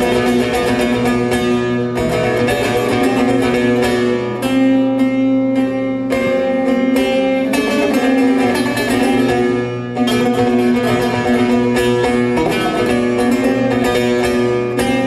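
Bağlama (long-necked Turkish saz) played solo: a plucked instrumental melody over steadily ringing drone strings, with a brief break in the playing about ten seconds in.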